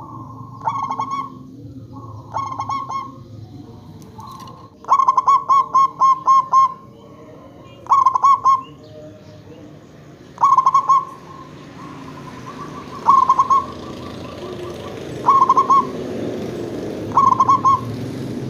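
Zebra dove (perkutut) singing its staccato cooing song: short bursts of rapid, clipped coos repeated about every two to three seconds, one longer run of notes about five seconds in. A low background rumble grows louder in the second half.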